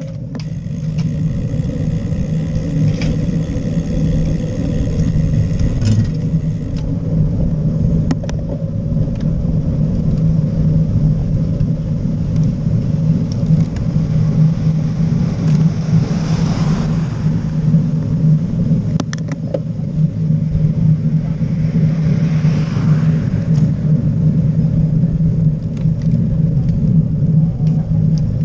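Steady wind rumble on the microphone and tyre noise from road bicycles riding along tarmac, building up over the first few seconds as the bikes gather speed.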